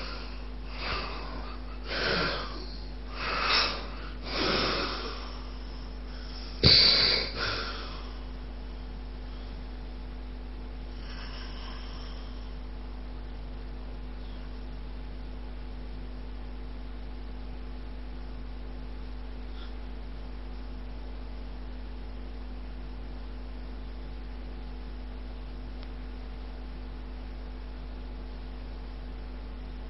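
A sleeping person snoring and snorting in a rapid run of noisy breaths about a second apart, with the loudest, sharp snort about seven seconds in. After about eight seconds the breathing sounds stop and only a steady electrical mains hum remains.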